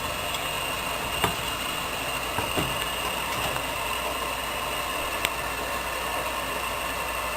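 Steady kitchen background hiss with a faint high whine, broken by three brief light clicks about a second, two and a half seconds and five seconds in.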